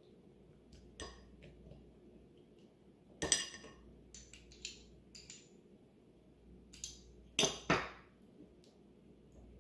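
A utensil clinks and scrapes against white ceramic bowls while a tomato-and-spice paste is mixed. There are scattered light taps, a loud clink about a third of the way in, and two sharp clinks close together near the end.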